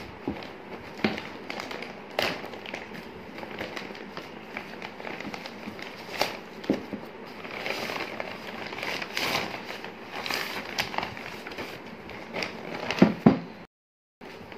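Plastic parts bags crinkling and rustling as hands move aluminium suspension control arms, with many small clicks and knocks of the parts against each other; two louder knocks about 13 seconds in.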